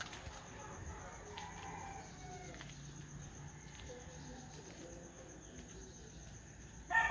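Roosters crowing faintly, with a louder crow starting right at the end.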